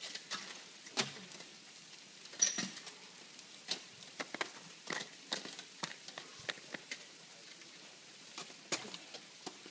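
Ice axes and crampons striking ice: a long irregular series of short, sharp ticks and knocks, the loudest about a second in and again about two and a half seconds in.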